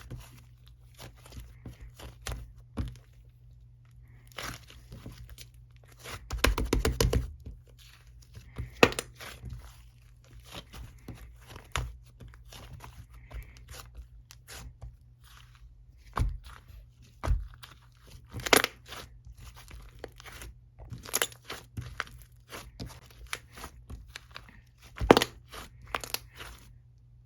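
Intermittent crunching and crinkling made of short, sharp clicks, with a denser run of crunching about six to seven seconds in.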